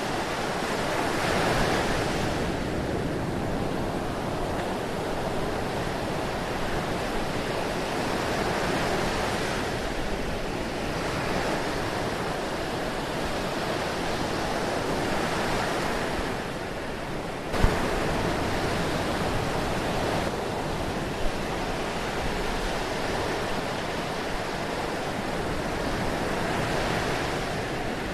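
Ocean surf: a continuous wash of waves breaking and running up the shore, swelling and easing every few seconds. About two-thirds of the way in the sound jumps suddenly louder with a brief sharp spike.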